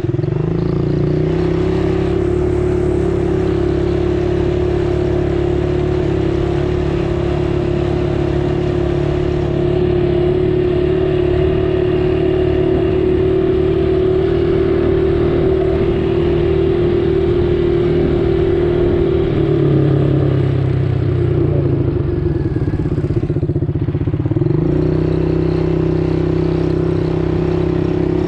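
A motor vehicle engine running at steady revs. About twenty seconds in, the revs drop for a few seconds, then climb back to the same steady pitch.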